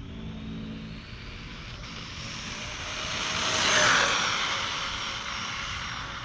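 Brushless electric motor of a Traxxas VXL Rustler RC truck whining at full throttle on a speed run. It grows louder to a peak about four seconds in as the truck passes, then fades.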